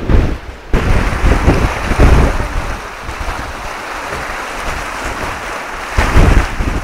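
Strong wind buffeting the microphone on a sailboat heeled in a force 6 wind. From about a second in, a steady rushing hiss of sea water streaming past the hull close below the microphone. Gusty wind buffeting returns near the end.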